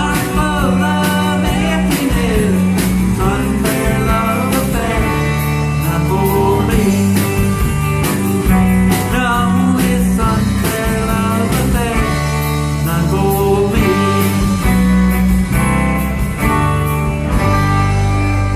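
A band playing a song: guitar over a steady bass line and drum beat, with a wavering lead melody.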